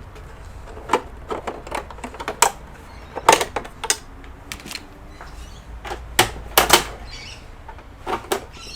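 Irregular clicks and knocks of hard plastic parts and small tools being handled during disassembly, with the loudest knocks about three seconds in and again around six to seven seconds in.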